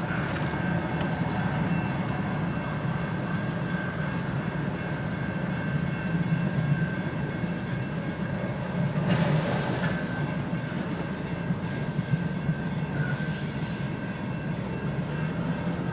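Canadian National freight train A492 rolling past, its wheels clicking over the rail joints over a steady low rumble, with a faint thin high tone held throughout. There is a brief louder surge about nine seconds in.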